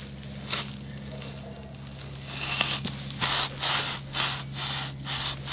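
Yard Butler steel turf plug cutter being pushed and worked down into soft lawn soil, heard as a run of short gritty scrapes as it cuts through turf and dirt, starting about two seconds in. A steady low hum runs underneath.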